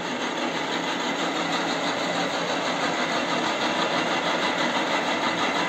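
Horizontal milling machine running steadily under power, a dense, even machine noise with a faint steady hum.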